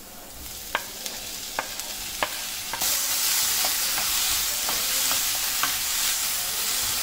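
Chopped tomatoes scraped off a wooden board into hot oil and onions in a nonstick kadai, with a few sharp knocks, then sizzling that grows louder about three seconds in as they are stirred with a wooden spatula.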